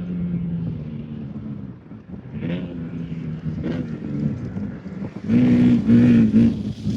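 Off-road race vehicle engine revving, its pitch rising and falling in short surges, with a louder run of three quick throttle blips about five seconds in.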